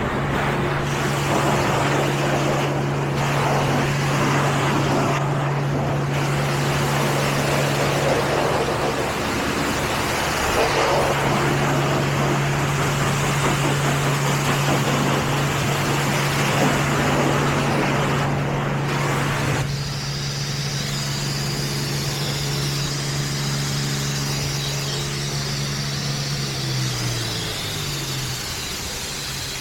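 Automatic car wash running: a steady rush of water spray over a machine hum. The spray cuts off abruptly about two-thirds of the way through, and the hum winds down in pitch near the end.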